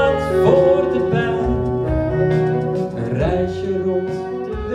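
Tenor saxophone playing a melodic line of held notes over a live band accompaniment.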